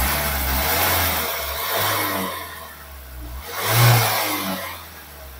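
Fiat Talento 1.6-litre diesel engine revved twice, a longer rev followed by a shorter blip about four seconds in, with a rushing noise that the mechanic suspects is an air or exhaust leak.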